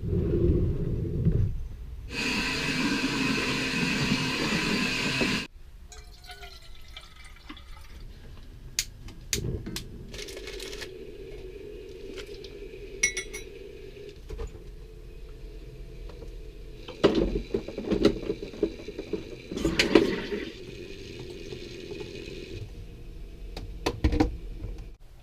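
Water running for about three seconds, then scattered clicks and knocks over a low steady hum.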